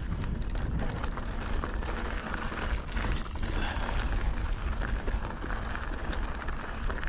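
Wind buffeting the camera microphone on a moving mountain bike, a steady low rumble with a rushing haze of tyre and trail noise and scattered small clicks and rattles.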